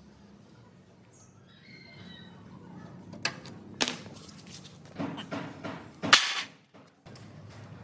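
A handful of sharp knocks and clinks, two close together near the middle, then a quick cluster and one loudest knock about six seconds in, over a faint low hum.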